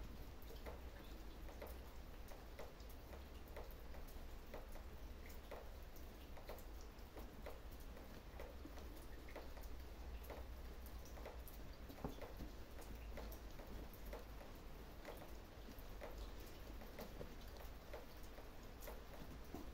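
Faint rustling with scattered small crackles and clicks, irregularly spaced, as satin and cotton bedding is smoothed and shifted by hand and a kitten steps about on it.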